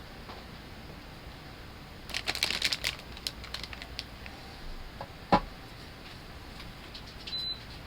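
Light handling clatter: a quick run of clicks and rattles about two seconds in, scattered ticks, then a single solid knock past the middle.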